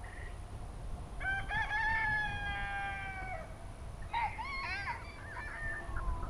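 A rooster crowing once, one long, nearly level call, followed about a second later by a run of short, arching bird calls.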